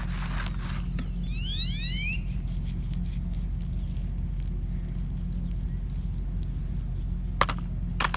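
A short squeak that rises in pitch, about a second in, then a couple of sharp clicks near the end, over a steady low hum.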